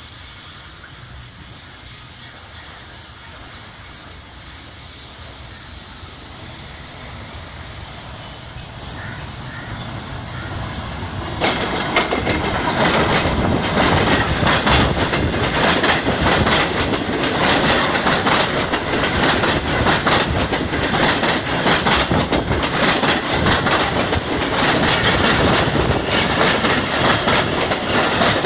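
A train approaching and passing close by: it grows steadily louder for about ten seconds, then jumps to full loudness about eleven seconds in as the cars run past with a rapid clickety-clack of wheels on the track.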